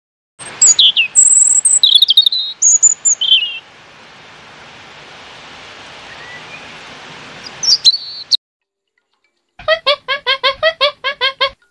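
European robin singing: short, high, thin whistled and trilled phrases, then a steady hiss with one more brief phrase. Near the end a different animal gives a rapid run of pulsed calls, about seven a second.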